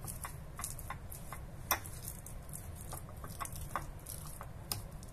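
Metal fork mixing soft herb butter in a ceramic baking dish: light, irregular clicks and scrapes of the tines against the dish, a few a second, one sharper click nearly two seconds in.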